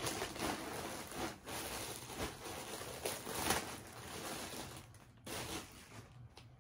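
Rustling of clothing as garments are handled and unfolded, a busy irregular rustle that dies down near the end.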